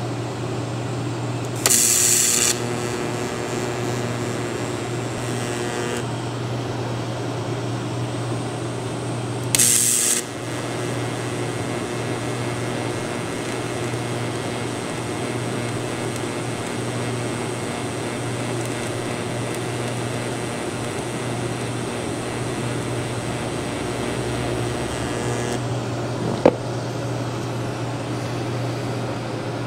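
TIG welder at work on a big-block Chevy roller camshaft, building up a damaged lobe edge. The arc strikes with a sharp, loud hiss about two seconds in and again about ten seconds in, then burns with a steady hiss until it stops around twenty-five seconds, over a steady hum; a single click follows shortly after.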